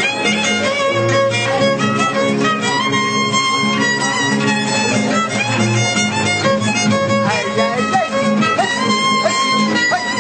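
Violin playing a gliding melody over acoustic guitars, a small live string group of fiddle and guitars.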